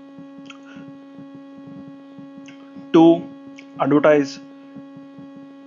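Steady electrical hum on the recording, with two short bursts of a man's voice about three and four seconds in.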